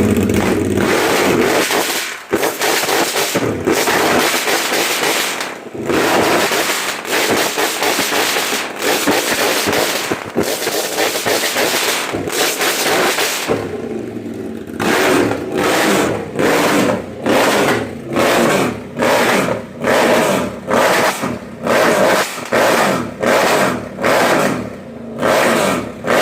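Harley-Davidson Sportster V-twin engine held at high revs on its rev limiter, the ignition cutting out again and again. The cuts are irregular at first, then from about halfway through come in an even rhythm of about one a second.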